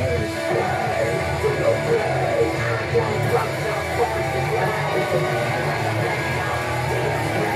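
Wrestler's entrance music: loud, steady heavy rock with electric guitar.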